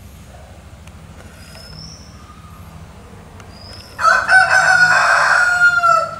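Rooster crowing once: a loud cock-a-doodle-doo of about two seconds, starting about four seconds in, held and then dropping in pitch at the end.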